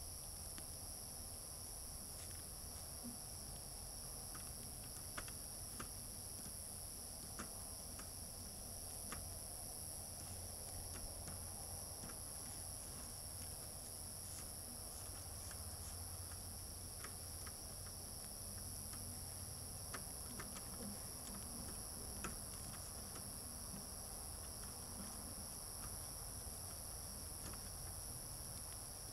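Steady high-pitched chorus of night insects, with scattered faint sharp clicks of white-tailed deer crunching corn.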